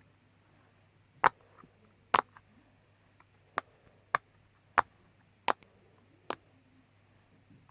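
A homemade pop-it fidget toy's bubbles being pressed: about seven sharp, separate pops at uneven intervals, roughly one a second.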